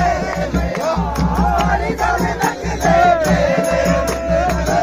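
Festive music with a fast, even drum beat and a bending melody that holds one long note about three seconds in, with a crowd around it.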